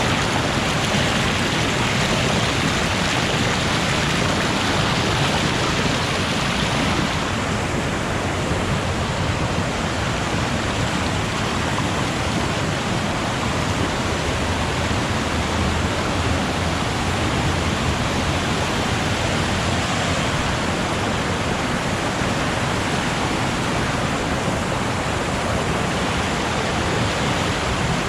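Waterfall rushing close by: a loud, steady roar of falling water, with the hiss easing slightly about seven seconds in.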